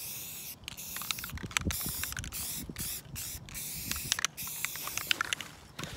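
Aerosol spray-paint can hissing in a run of short sprays with brief breaks between them, as letters are painted onto cardboard, with light clicks among the sprays. The spraying stops about five seconds in.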